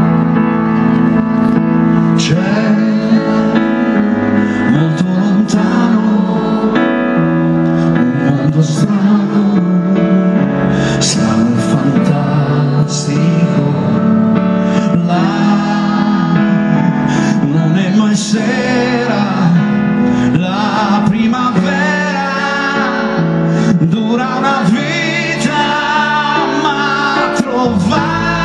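Live pop ballad: a man sings over keyboard-led band accompaniment, with the voice most prominent in the second half.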